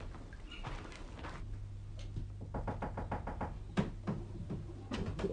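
Knocking on a door: a quick run of light knocks, then a couple of louder single knocks near the end.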